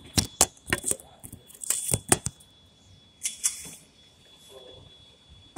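Handling noise from the recording phone and gear being set up on a shooting bench. There is a quick run of sharp clicks and knocks, about nine in the first two and a half seconds, then a brief scraping rustle about three seconds in and one more knock at the end. No shots are fired.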